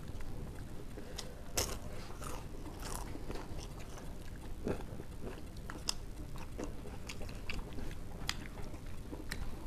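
Close-up mouth sounds of two people eating rice and egg curry with their hands: chewing and lip-smacking with scattered crunchy bites, heard as irregular short clicks.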